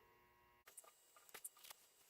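Near silence: faint room tone, with a few soft clicks starting about two thirds of a second in.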